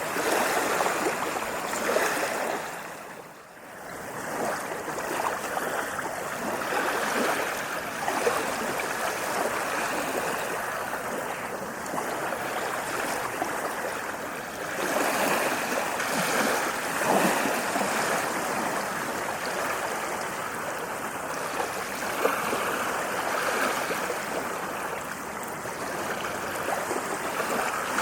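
Ocean waves washing on a beach: a continuous rushing wash of surf that drops away briefly about three seconds in, then swells back.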